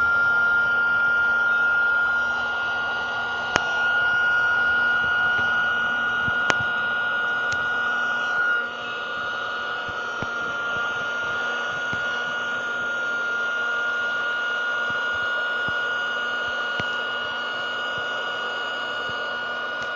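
Ozark Trail Quick-Fill battery-powered air pump running steadily with a high whine as it inflates an air mattress through the valve. There are two sharp clicks in the first seven seconds, and the pump gets a little quieter about nine seconds in.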